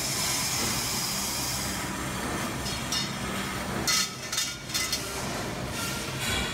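Automated tube-processing production line running: a steady mechanical hum with several short, sharp noises between about three and five seconds in.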